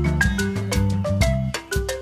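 Upbeat background music: a melody of short struck notes over a bass line with a steady beat.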